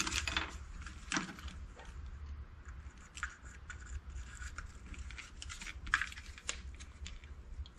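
Irregular small clicks and scrapes of a plastic wiring-harness connector being pried and pushed at with a small tool, which fails to get under the locking tab's retainer.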